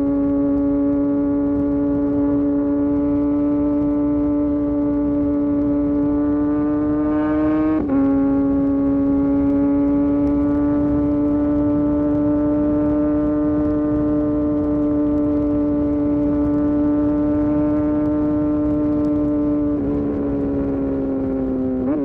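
Kawasaki Ninja superbike's engine pulling at highway speed, its steady tone climbing slowly, then dropping sharply with an upshift about eight seconds in and holding steady, easing off near the end. A rush of wind and road noise runs underneath.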